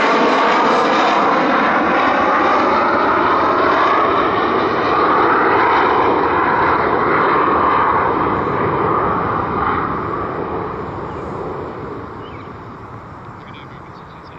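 McDonnell Douglas MD-80's two tail-mounted Pratt & Whitney JT8D turbofans at takeoff power during climb-out. The sound is loud and steady for about eight seconds, then fades gradually as the jet climbs away.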